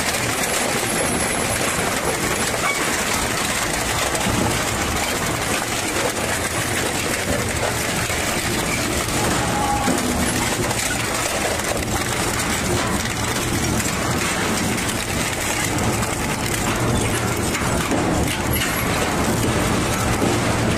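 A heavy machine running continuously with a dense rattling, grinding clatter over a low steady hum.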